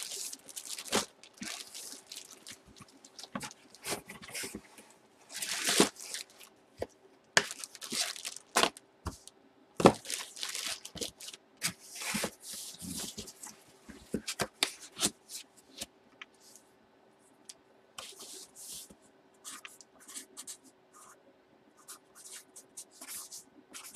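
Plastic crinkling and cardboard rustling and scraping as a hockey jersey in its clear plastic bag and a cardboard box are handled, in irregular bursts, with a faint steady hum underneath.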